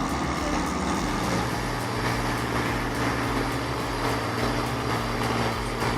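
A heavy machine's engine running steadily, with a steady hum under a broad mechanical noise.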